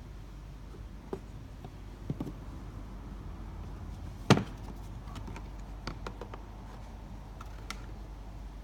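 Sharp clicks and knocks of the cabin air filter housing and its cover being handled, the loudest about four seconds in, with smaller clicks before and after. A steady low hum runs underneath.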